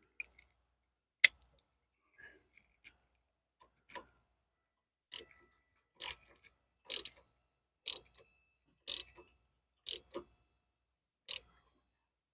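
Short, sharp metallic clicks from a hand tool tightening the cable nuts on an ATV starter solenoid's terminals. There is one loud click about a second in, then a run of clicks, some doubled, about once a second.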